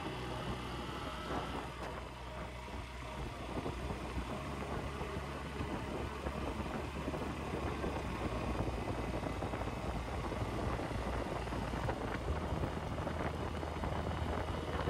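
Honda Shine SP 125 motorcycle's single-cylinder engine running steadily, with wind noise on the microphone.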